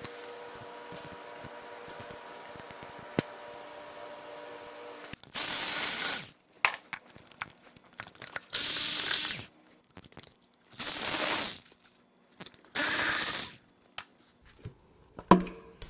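A power tool running in four short bursts of about a second each, backing out the intake manifold bolts on a Jeep 4.0L inline-six. Before them comes a steady, faint hum with a click about three seconds in.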